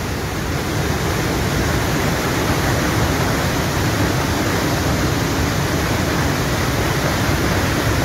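A waterfall pouring with force onto rock: a loud, steady, unbroken rush of falling water.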